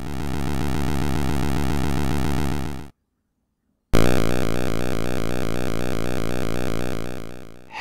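Synthesized retro video-game-style buzzing drone imitating a propeller plane's engine, swelling in, holding steady, then cutting off about three seconds in. After a second of silence, a second synthesized buzz imitating a helicopter starts abruptly and slowly fades.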